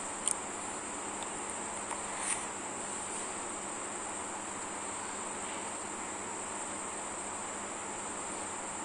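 A steady, high-pitched background trill or hiss, with a couple of faint light clicks in the first few seconds.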